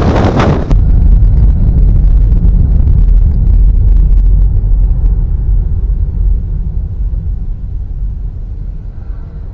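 Boeing 737-800's CFM56 jet engines at takeoff thrust. A loud hiss of jet blast on the microphone cuts off under a second in. It gives way to a deep rumble, muffled as if heard from inside a car, that slowly fades as the jet rolls away.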